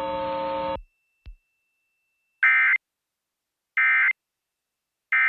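A steady humming tone cuts off under a second in. Then come the three short, identical digital data bursts of an Emergency Alert System end-of-message (EOM) code: raspy two-tone SAME data screeches about 1.3 s apart, marking the end of the alert.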